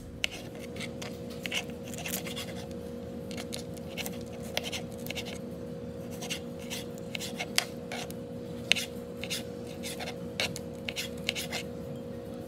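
Kitchen knife slicing pickled jalapeños on a plastic cutting board: irregular taps and clicks of the blade against the board, with a steady hum underneath.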